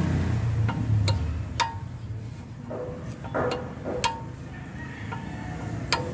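A 12 mm combination wrench clinking against a nut on the steering tie rod as it is turned and refitted, four or five sharp metallic clinks, each with a short ring, spaced irregularly. A low rumble in the background fades after the first second.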